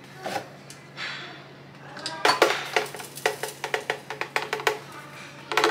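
Plastic Vitamix blender jar knocked repeatedly against the rim of a stainless steel flour sifter, about three or four sharp knocks a second from about two seconds in, each with a short metallic ring. The knocks shake the blended sucanat sugar powder out of the jar into the sifter.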